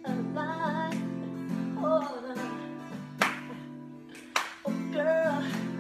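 A young male singer doing wordless held notes and runs in short phrases over sustained backing chords, with two sharp clicks in the second half.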